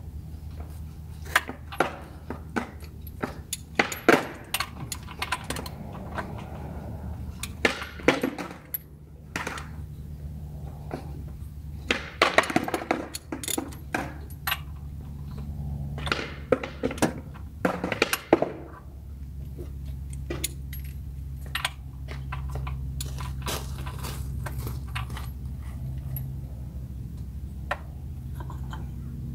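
Sharp metallic clicks and clinks from a ratchet and socket working the plastic underbody cover's fasteners, in irregular clusters, dense for the first eighteen seconds or so and sparser after. A steady low hum runs underneath.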